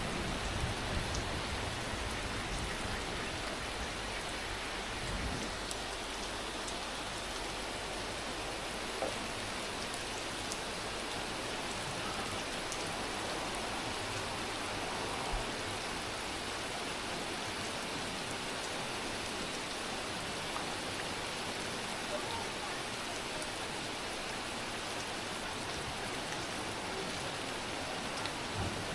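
Steady rain falling, an even hiss with a few louder drop ticks here and there.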